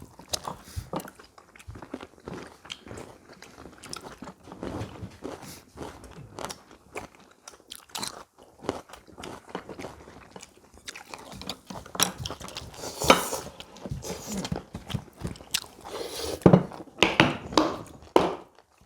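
People eating at a table: chewing and crunching of food, with scattered clicks and knocks throughout, busier and louder about two-thirds of the way in and again near the end.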